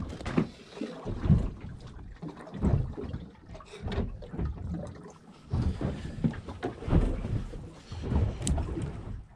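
Wind buffeting the microphone in uneven gusts on a small boat, with water lapping and knocking against the hull; no engine running.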